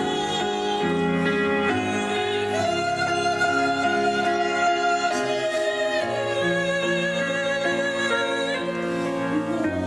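Church choir singing a sacred anthem with instrumental accompaniment, holding long notes that change every second or two.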